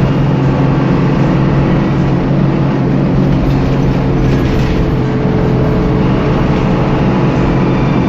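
Hanif Enterprise Hino AK1J bus engine running steadily at highway speed, heard from inside the cab, with road noise under it.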